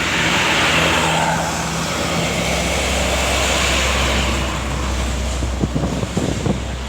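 A large bus passing close by: a low diesel engine drone under a rush of tyre and road noise, with the engine note growing stronger about two seconds in.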